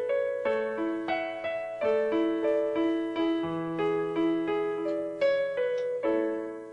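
Slow piano ballad played on an electronic keyboard with a piano sound, an instrumental passage without vocals. Chords and melody notes are struck every third to half second, each ringing on and fading.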